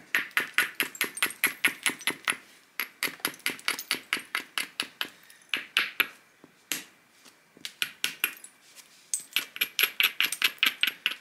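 Rapid light taps of a small hammer on the edge of a stone biface, about five a second in runs of a few seconds with short pauses. This is flintknapping: small flakes are being chipped off to raise the edge and set up striking platforms.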